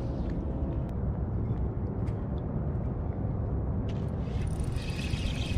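Steady low wind rumble on an action-camera microphone over open water, with a few faint clicks. About a second before the end, a high, steady whir comes in.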